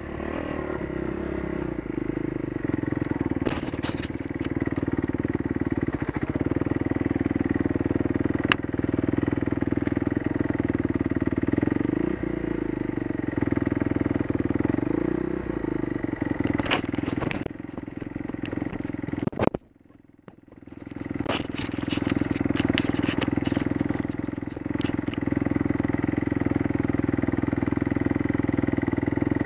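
Kawasaki KX250F's single-cylinder four-stroke engine running steadily as the dirt bike is ridden, with scattered sharp knocks and rattles. About two-thirds through, the sound drops almost to silence for about a second, then comes back up.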